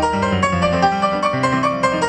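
Digital piano playing a fast ragtime piece at full tempo: a quick, dense run of treble notes over a bouncing bass line. It is a performance played at half speed and played back through the digital piano at full speed.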